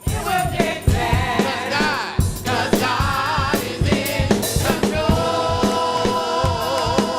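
Gospel music: a choir singing over a drum kit keeping a steady beat.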